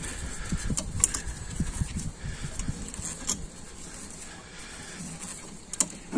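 Small C-clamp being screwed in by its sliding T-bar handle to push a front brake caliper piston back into its bore: irregular metal clicks and knocks from the handle and screw, with a few sharper clicks about a second in, a little past three seconds and near the end.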